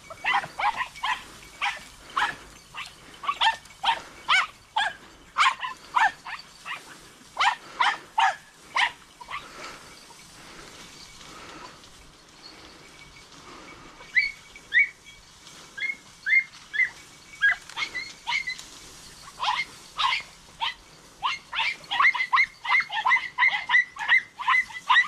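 Podenco hounds yelping in quick runs of high-pitched yelps, giving tongue as they work a rabbit's scent through the reeds. The yelping thins to short, quieter yelps for a few seconds midway, then picks up again in a fast string near the end.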